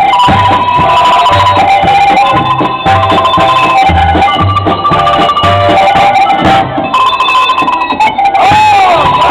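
Cowbells rung as a melody instrument, holding ringing notes of changing pitch, over accompanying music with a steady, regular bass beat.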